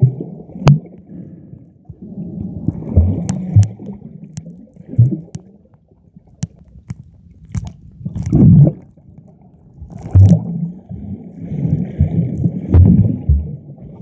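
Muffled underwater sloshing and rumbling of seawater moving around a submerged phone, rising and falling in loud surges every second or two, with sharp clicks scattered through it.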